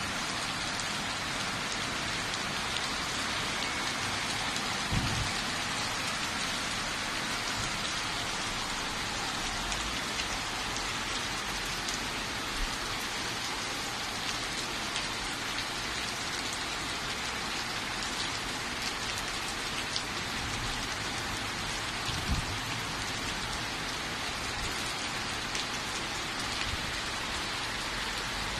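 Heavy rain pouring down onto a flooded street and parked cars: a steady, dense hiss, with two brief low thumps, about five seconds in and near the end.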